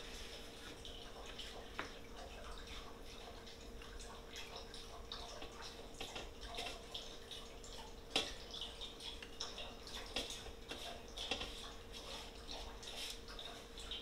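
Faint kitchen handling sounds as raw fish fillets are laid out on a parchment-lined baking pan: soft paper rustles and a few light taps and clicks, over a steady faint hum.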